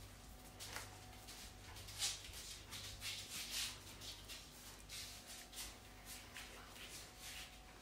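Faint shuffling footsteps and rustling, soft irregular brushing sounds about twice a second, as someone walks across a laminate kitchen floor, over a faint steady hum.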